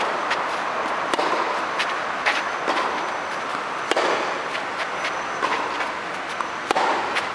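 Tennis rally on a clay court: sharp knocks of ball on racket strings and ball bounces, about one every second or so, over a steady background hiss.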